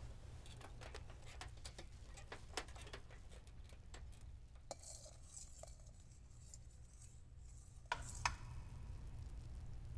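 A knife cutting through a sheet of sponge cake on a wire cooling rack, with small clicks and scrapes of the blade against the rack, then two sharper clicks about eight seconds in, over a low steady hum.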